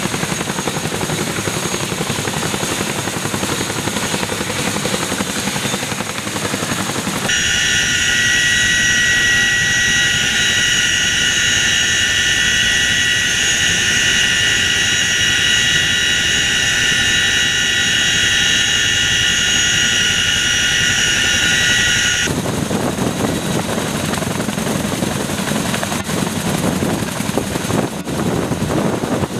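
CH-47 Chinook helicopter running on the ground with its rotors turning. From about seven seconds in until about twenty-two seconds the sound is heard from inside the cabin: a loud, steady, high-pitched whine of the transmissions over the engine noise. Before and after that, the rotor and turbine noise is heard from outside.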